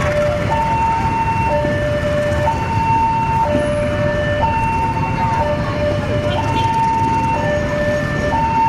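Railway level-crossing warning alarm sounding a steady two-tone hi-lo signal, switching between a low and a high note about once a second. Underneath is a continuous low rumble from the departing freight train.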